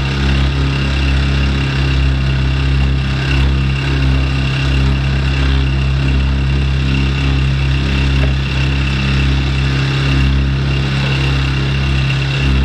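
Small outboard motor on a kayak running at a steady speed, a constant low engine drone with a faint high whine over it.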